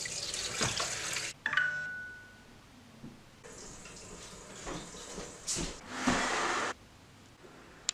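Kitchen mixer tap running as a glass is rinsed under it, shut off abruptly about a second in, followed by a short ringing clink of the glass. Later come quieter knocks and scraping as a wooden dining chair is pulled out.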